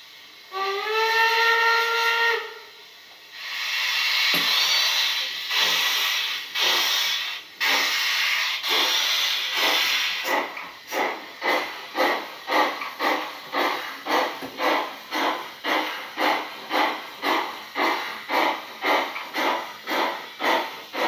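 Sound decoder of a gauge 0 model Class 64 steam tank locomotive, playing through its small on-board speaker. It gives one whistle blast that rises slightly at the start, then long hisses of steam. Then come exhaust chuffs that start slow and settle to an even beat of about two a second as the locomotive pulls away.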